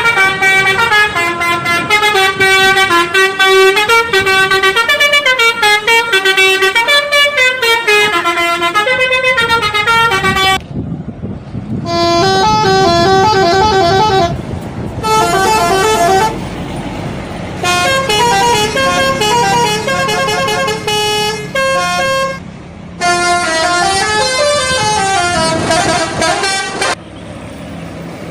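Indonesian bus telolet horns playing fast melodies of stepping tones, several different horns one after another, each breaking off abruptly, with low engine rumble underneath.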